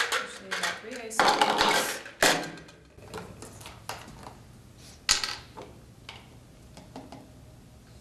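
Ice cubes clattering and rattling in a glass for about the first three seconds, then a single sharp clink of glass a little after five seconds in, followed by a few faint taps.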